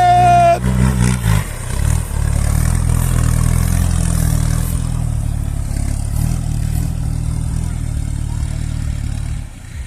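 Off-road 4x4's engine running and revving as it climbs out of a trail obstacle, a steady low drone that shifts in pitch. A steady high tone cuts off about half a second in.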